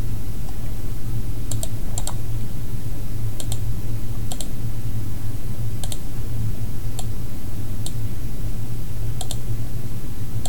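Computer mouse clicks: about eight short sharp clicks at irregular intervals, most heard as a quick press-and-release pair, over a steady low hum.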